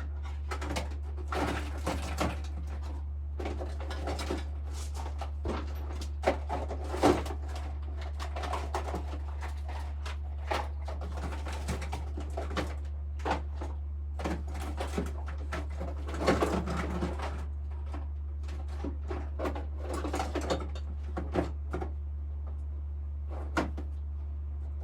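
Rummaging through tools and drawers: scattered clicks, clatters and rustles, with a few sharper knocks about six and seven seconds in and a cluster around two-thirds through, over a steady low hum.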